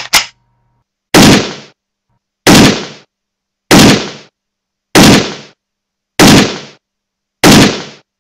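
Six loud gunshots, one every second and a quarter or so, each with a short dying tail, after two quick clicks at the very start.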